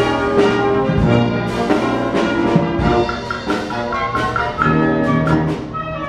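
Orchestral music with brass instruments playing, a little quieter and thinner near the end.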